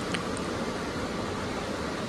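Steady rush of ocean surf breaking on the beach, mixed with wind, with one small click just after the start.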